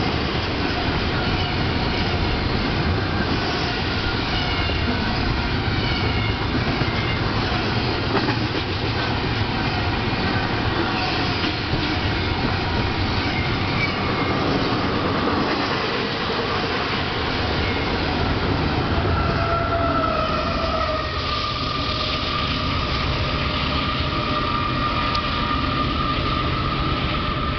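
Union Pacific double-stack container cars rolling past close by: a steady rumble and clatter of steel wheels on rail, with thin high wheel squeals. About two-thirds of the way in, a steadier squeal sets in and holds.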